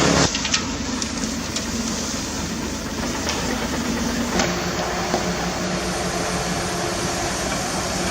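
A small motor running steadily with a rough, rattly noise and a few sharp clicks near the start; a steady hum comes in about four seconds in.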